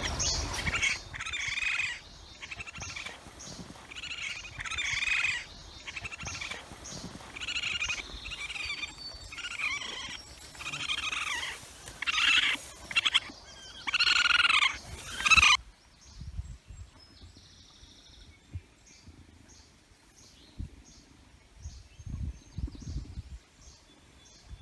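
Repeated bird-like calls from an animal inside a tree hollow, each under a second long and coming every second or two. The calls cut off suddenly about two-thirds of the way through, leaving only faint ticking.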